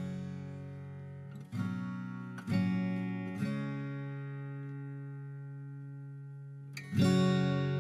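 Background music: acoustic guitar strumming slow chords, with one chord left to ring for about three seconds before a fresh strum near the end.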